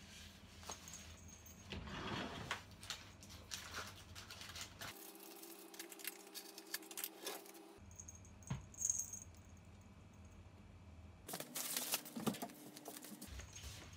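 Faint kitchen handling noises: scattered small clicks, taps and light clatter of things being handled at a counter. A louder flurry of clatter and footsteps comes near the end as someone walks past.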